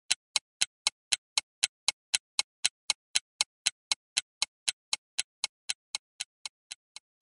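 Clock-like ticking sound effect for an on-screen countdown timer, about four sharp ticks a second, growing fainter over the last two seconds before stopping.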